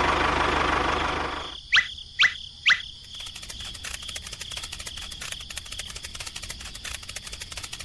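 A loud rushing noise that stops about a second and a half in, then three quick falling whistles, then a fainter steady chirring with fine rapid ticks.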